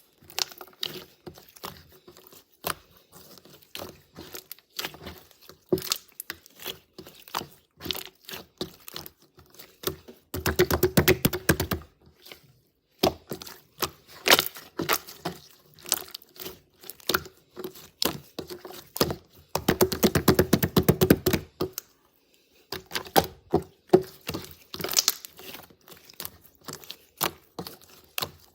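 Slime being squished and poked by hand, giving a run of small clicking pops from trapped air. Two stretches of fast, dense clicking come about ten and about twenty seconds in.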